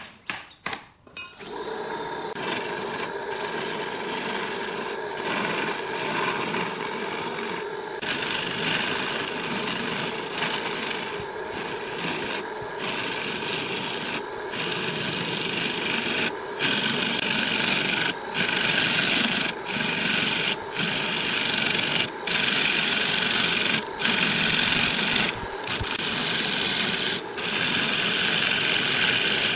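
A wood lathe starts up and spins a segmented wooden disc with a steady motor hum. From about eight seconds a turning tool cuts the spinning wood with a loud, even hissing scrape. Later the scrape breaks off briefly every second or two as the tool lifts and goes back in.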